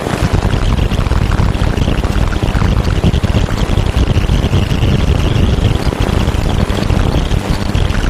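Steady, dense rushing and crackling noise with a deep rumble underneath and a faint hiss higher up, without a beat or melody. It is an electronically produced noise track that the uploader presents as a painting's energy made audible through a 'Garyaev matrix'.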